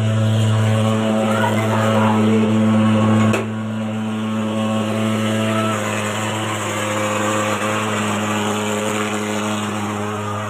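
Engine running at a steady speed, a low even hum; it drops a little in level about three and a half seconds in.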